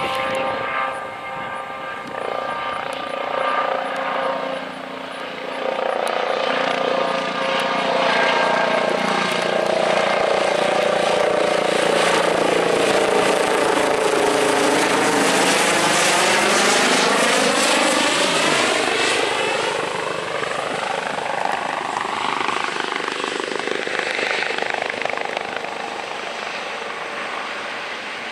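Airbus H135 (Eurocopter EC135) helicopter on approach to land, its rotor beat and the whine of its Fenestron ducted tail fan. It swells to loudest as it passes low overhead about halfway through, then eases a little as it slows toward a hover.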